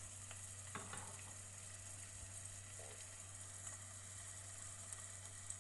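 Chopped onions sizzling faintly in a little hot oil in a small stainless steel pot, the start of a sauté, over a steady low hum.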